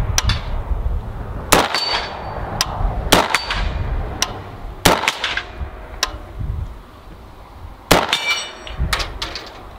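Bear Creek Arsenal BC-15 AR-15 rifle firing a string of about a dozen shots at uneven intervals. Several shots are followed by a brief metallic ring.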